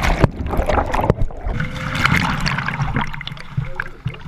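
Water splashing and sloshing, with scattered knocks and clicks, over a steady low rumble: live bass being handled in water.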